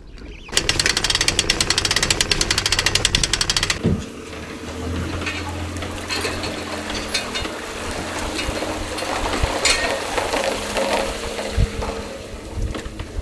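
A loud, fast, even rattle lasting about three seconds, then a boat's outboard motor running steadily at idle.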